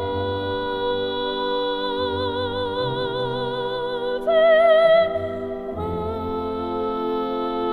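Slow background music: long held notes with a wavering vibrato, changing pitch every second or two, over sustained chords.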